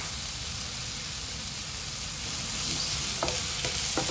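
Sliced red onion and cauliflower florets sizzling in oil in a nonstick frying pan. A wooden spatula knocks against the pan a few times near the end as the vegetables are stirred.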